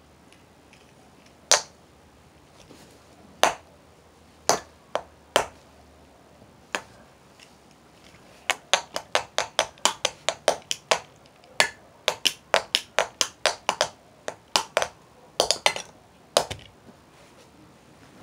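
A child drumming: sharp percussive taps, scattered at first, then a quick run of about four a second in the middle, with a few harder strikes near the end.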